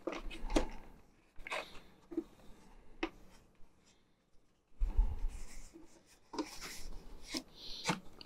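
Hands handling plastic inkjet cartridges: scattered light clicks and rustling, with a dull bump about five seconds in.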